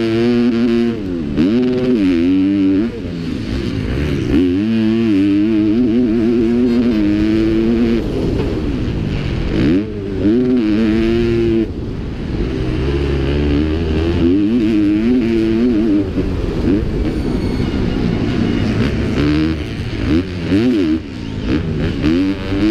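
Motocross bike engine heard from the rider's helmet camera, revving hard and falling off over and over, its pitch climbing and dropping with brief dips as the throttle is shut, under a steady rush of wind.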